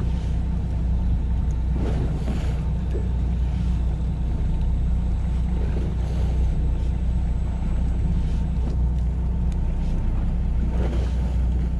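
Fishing boat's engine running steadily, a low, even drone.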